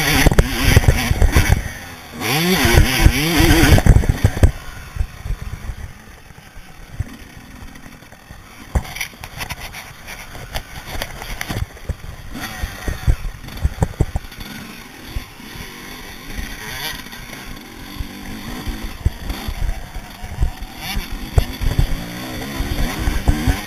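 Motocross bike engine revving hard for the first four seconds or so, then dropping to a much quieter, uneven running sound broken by many short low knocks, picking up again near the end.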